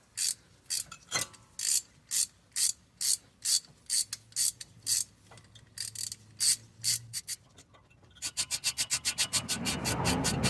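Ratchet with a 7 mm hex (Allen) bit clicking as it runs a brake caliper guide bolt back in. It gives slow single clicks about two a second, then a fast run of clicks near the end.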